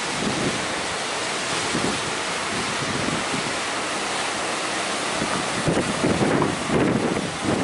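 Sea surf rushing steadily under strong wind that buffets the microphone, with heavier gusts near the end.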